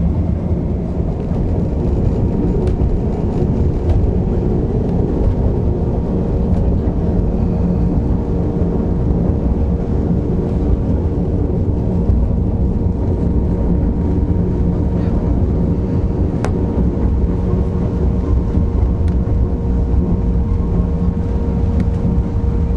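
Narrow-gauge passenger train running, heard from inside a carriage: a loud, steady rumble of wheels on track with a constant hum.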